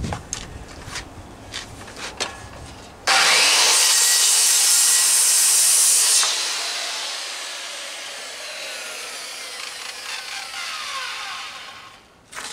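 Corded circular saw starts sharply about three seconds in and cuts through a wooden 4x4 post for about three seconds. It is then released, and the blade winds down with a falling whine over several seconds. A few light knocks and handling clicks come before the cut.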